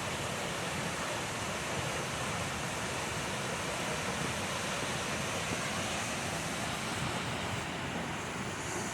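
Waterfall water falling and splashing in a steady, even rush of noise.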